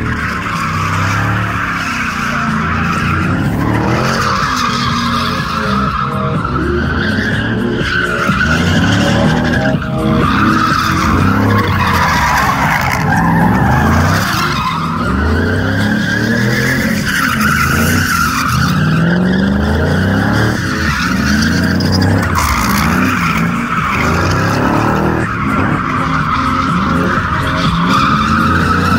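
Drift car's engine revving up and down repeatedly while its rear tyres screech continuously as it slides sideways around the cones.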